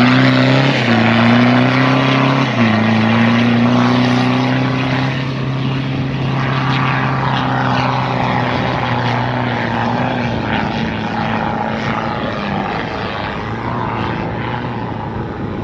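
Toyota Hilux pickup's engine revving hard under load as it drives off through soft sand toward a dune, with a drop in pitch about two and a half seconds in. It then holds a steady drone that slowly fades as the truck draws away up the dune, over a rushing noise.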